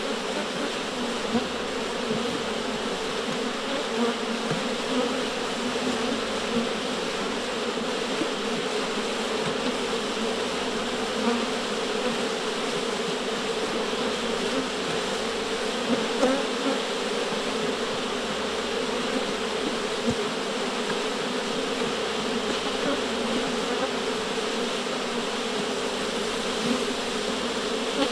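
Beehive of angry honeybees: a dense, steady swarm buzz of many bees at once.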